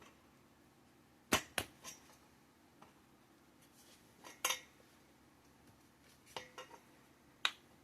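Sharp clicks and knocks of greenhouse frame pieces being fitted together as poles are seated in the frame's holes: about three knocks in quick succession, a double knock midway, and a few more near the end.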